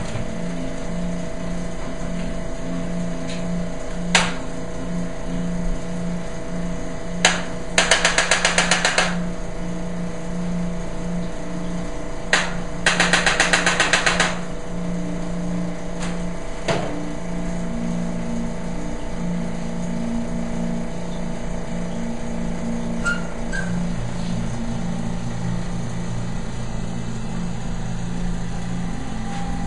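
Chiropractic drop-table treatment: several single sharp clacks and two runs of rapid clicking, each about a second long, about eight and thirteen seconds in. A steady pulsing mechanical hum runs underneath.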